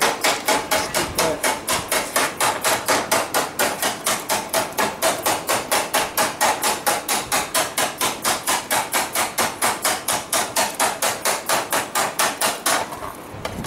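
Hand hammer striking a red-hot metal pan blank in a quick, even rhythm of about four blows a second, rolling in the pan's rim. The blows break off briefly near the end.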